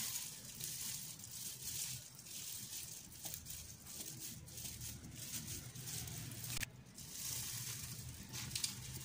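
Faint soft scraping of a knife slicing down through a moist, chocolate-glazed brownie slab onto a wooden board, briefly cut off about two-thirds of the way through.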